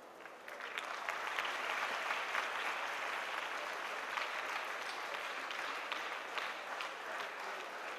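Audience applauding, a dense clapping that swells about half a second in and holds steady.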